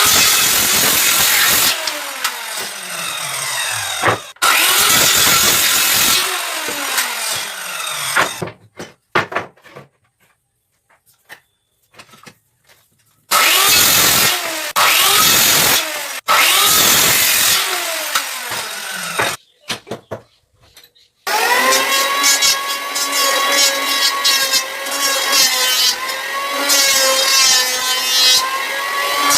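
Power saw cutting pallet wood in several bursts, its motor whining down in pitch after each cut. Near the end it runs steadily at full speed.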